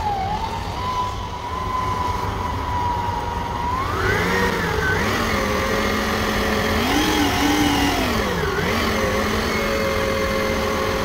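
Stand mixer motor running, its flat paddle beating cream cheese and sugar in a steel bowl until the sugar dissolves. The motor's whine shifts pitch several times, rising about four seconds in, over a steady low rumble.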